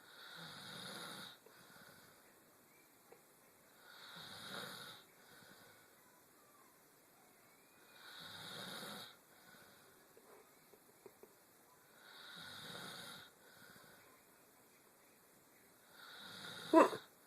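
A person snoring in sleep: five snores about four seconds apart, each followed by a short, softer breath. The last snore ends in a sharp, much louder peak.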